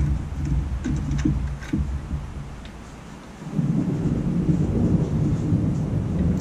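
Socket on long extensions unscrewing a spark plug from an engine head: a few sharp ratchet-like clicks over a low rumble, then from about three and a half seconds in a steady low rattling rumble as the tools turn and rub in the engine bay.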